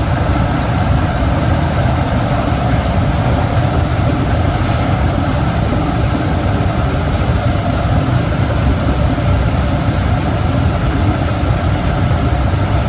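Large industrial wood pellet burner, about 2000 kW, running with a loud, steady, deep rumble of combustion and blower.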